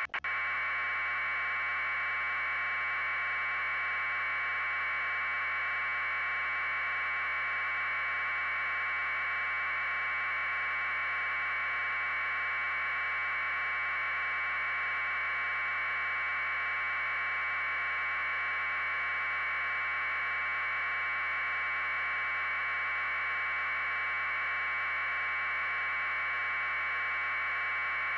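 Steady, unchanging hiss held in a narrow middle band of pitch, like static on a broadcast feed, with a brief dropout right at the start.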